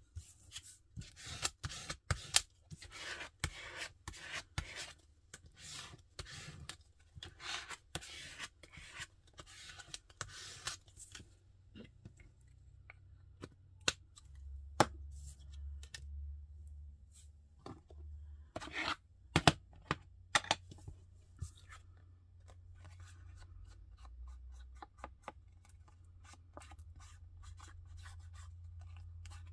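Paper craft handwork: quick scratchy strokes of a glue stick rubbed over paper for the first ten seconds or so, then a few sharp clicks and taps. Near the end come soft rubbing strokes of an ink blending tool along the edges of a photo, over a low hum.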